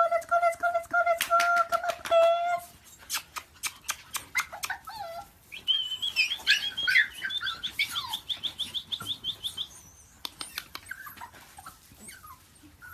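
A dog whining in one long, steady high note, followed by a run of sharp clicks and then a fast, high-pitched trill lasting a few seconds.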